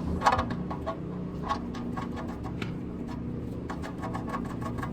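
Light, irregular clicks and taps of hands and tools at the oil-pan drain plug under the car, over a steady low hum.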